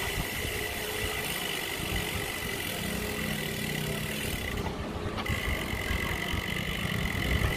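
Wind rumbling unevenly on the microphone of a moving camera, with a faint steady high tone throughout and a low hum from about three seconds in.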